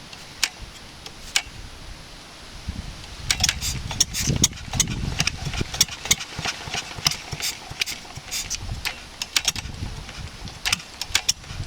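1954 Wolseley WD8 single-cylinder stationary engine being started and catching, firing in irregular sharp cracks over a low rumble. The uneven running is a sign of the ignition timing being off.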